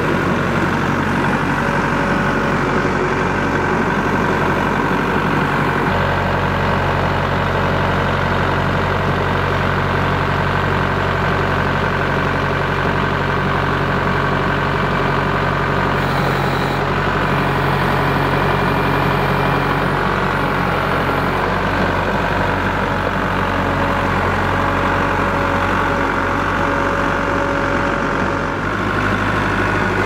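Kubota MX5400 tractor's diesel engine running steadily, its note shifting to a different speed a few times.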